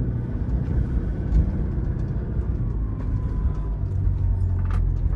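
Remapped Toyota Fortuner's engine pulling steadily under load as the SUV drives through deep, loose dirt, a continuous low rumble with a few faint clicks.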